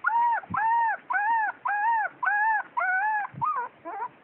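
Small puppy crying: a rapid run of high, arched whining yelps, about three a second, which become shorter and more broken near the end.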